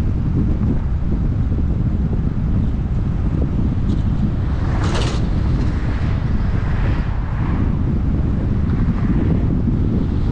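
Wind buffeting the microphone of a moving vehicle, a steady low rumble with road noise. Oncoming vehicles rush past with a brief hiss, the loudest about five seconds in, followed by softer passes.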